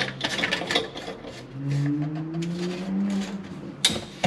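Light clicks and taps of a brass slip joint nut and ABS drain pipe being handled and fitted under a sink, with one sharp click near the end. Through the middle, a low tone rises slowly in pitch for about two seconds.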